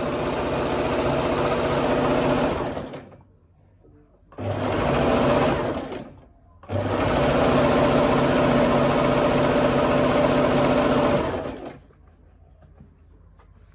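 Sewing machine running fast at a steady speed, winding bobbins. It runs three times, with short stops between; the last run lasts about five seconds.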